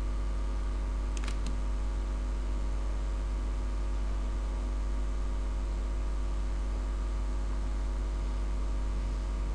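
Steady low electrical hum with a row of steady tones over a faint hiss, the background noise of the recording setup. Two faint clicks come about a second in, likely from the computer mouse.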